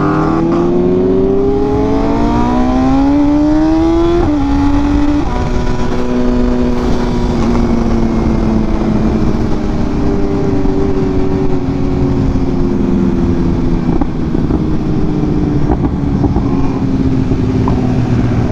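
BMW M 1000 RR sport bike's inline-four engine pulling up through the revs for about four seconds under acceleration, dipping briefly around a gear change, then holding a steady cruising pitch, with wind noise over the helmet microphone.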